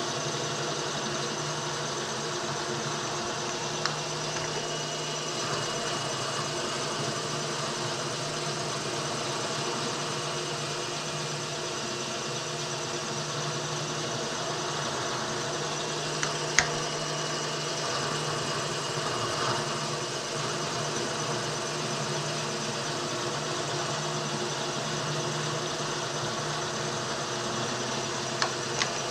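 Milling machine running with a two-flute end mill cutting a shallow socket into round stock, a steady hum of several even tones. A few sharp clicks stand out: about 4 seconds in, about halfway, and twice near the end.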